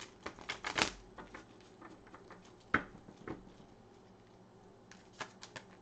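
Tarot cards being handled: a quick run of sharp clicks in the first second, a single louder snap near three seconds, and a few lighter clicks near the end as cards are drawn and laid down.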